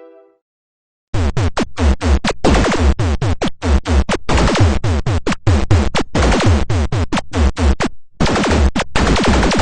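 A Noise Kit electronic noise-maker blaring harsh, chaotic synth noise. It starts abruptly about a second in and comes in choppy bursts broken by short gaps, full of repeated falling pitch sweeps.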